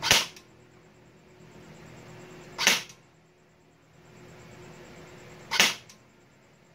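Airsoft electric gun (AEG) rifle firing three single shots of 0.20 g BBs, spaced a little under three seconds apart, during a muzzle-velocity (FPS) test. Each shot is a short sharp crack.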